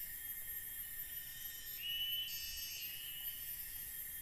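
Forest insects keeping up a steady, high-pitched drone, with a single rising whistled call about two seconds in.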